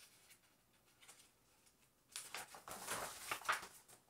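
A page of a picture book being turned: paper rustling for about two seconds, starting about halfway through, after a faint start.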